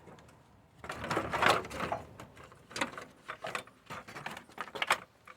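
Hand tools and car parts being handled: a series of irregular clattering and scraping sounds, loudest between one and two seconds in.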